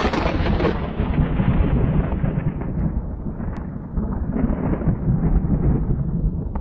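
Thunder: a sharp crack at the very start, then a long low rumble that slowly loses its high end as it fades.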